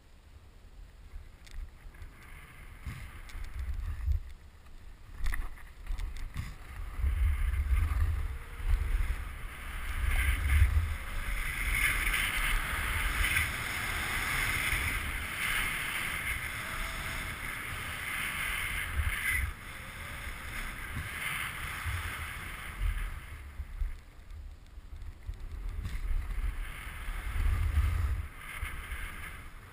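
Hiss of sliding downhill over snow, with wind gusting on the microphone as low buffeting rumbles. The hiss is loudest through the middle stretch, on firm groomed corduroy, then eases again.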